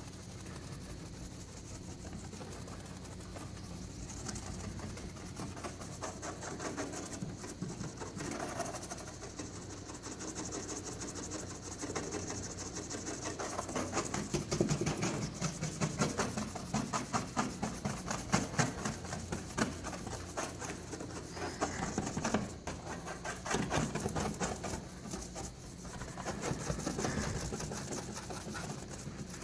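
Quick repeated rubbing strokes of a cloth scrubbing baking soda paste over car paint to lift paint scuffs. The strokes get harder and more uneven partway through, with a faint steady hum underneath.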